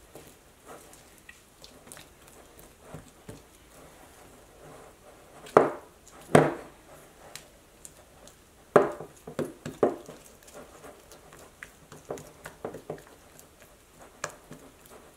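Silicone spatula stirring a thick flour-and-water sourdough starter mix in a glass bowl: irregular soft scraping and sticky smacks, with several louder knocks in the middle.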